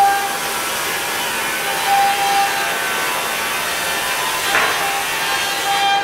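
CNC router spindle with a small carving bit milling a wooden panel: a steady hiss of cutting with a faint, even spindle whine underneath.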